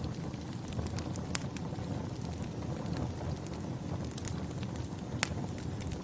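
Fire crackling: a steady low rumble of burning with irregular sharp pops and snaps, the loudest about a second and a half in and again about five seconds in.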